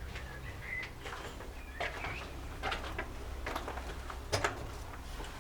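Irregular footsteps scuffing and crunching on a debris-strewn floor, about one every second or so, with a few faint bird chirps from outside.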